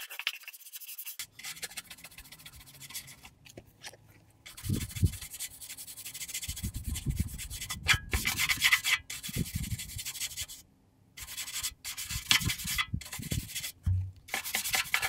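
Hand scrubbing brush scrubbed hard back and forth over the corroded metal of a boat trailer frame where the torsion axles mount: rapid, rough scratching strokes in runs with a few short pauses.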